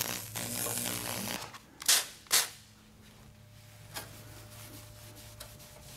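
TIG Brush electrochemical weld cleaner buzzing and sizzling as its acid-soaked brush works the exhaust metal, stopping about a second and a half in. Two short loud bursts of noise follow, then only a faint hum.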